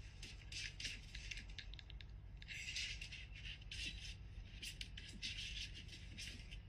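A kitten's claws scrabbling and scraping on hard plastic jugs as it climbs over them: faint, irregular scratchy rustling in clusters.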